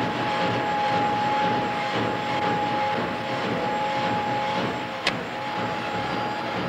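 Old electronic-circuit production machines running with a steady whine over a constant mechanical hum, with a single sharp click about five seconds in.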